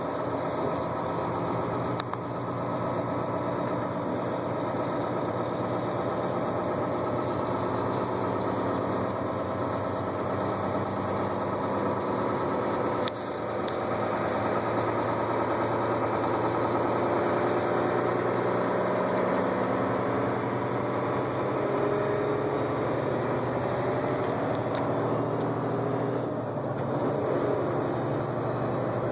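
Steady engine hum and road noise heard from inside a vehicle's cab as it drives along the highway.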